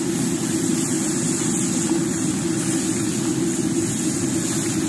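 Wok of fried rice over a high-heat stove: a steady, even roar from the burner with a hiss of steam and sizzling on top.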